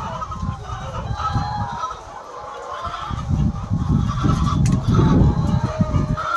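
A large flock of laying hens calling and clucking together, many overlapping calls at once, over an irregular low rumble.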